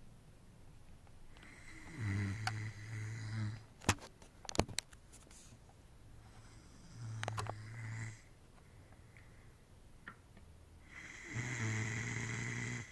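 A sleeping man snoring: three long snores, about four and a half seconds apart. A few sharp clicks come between the first and second snores.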